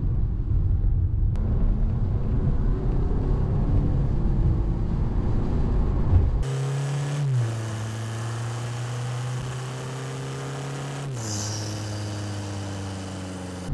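Mk8 Golf GTD's 2.0 TDI diesel engine, fitted with a Ramair induction kit, pulling the car along the road. At first it is a low rumble mixed with road noise, then from about six seconds in it becomes a clearer, steady engine drone that drops in pitch twice, as at gear changes.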